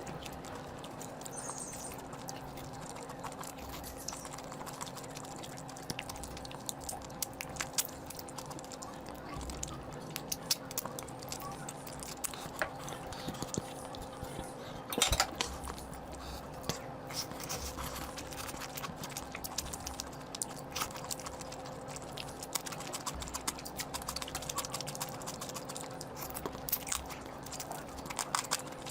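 Close-miked eating sounds of a person eating curry: irregular chewing and wet mouth clicks and smacks, with a louder cluster about halfway through. A faint steady hum runs underneath.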